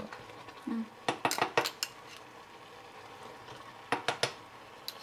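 Metal spoon clinking and scraping against a blender's blade base while scraping out blended green paste: a cluster of sharp clinks about a second in and two more near the end.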